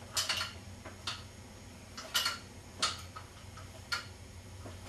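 Light clicks and clacks from a Lean Abs leg machine's pivoting support pad and rubber-band tension arm as it is kicked up and let back down, about once a second.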